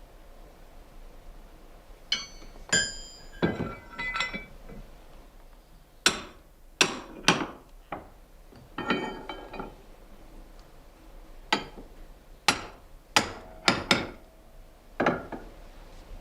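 Over a dozen irregular, sharp knocks on metal, several with a brief ringing after the strike.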